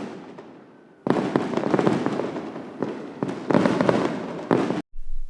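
Multi-shot fireworks compound cake firing: a burst at the start, then from about a second in dense, rapid launch-and-burst reports, broken up by several abrupt cuts.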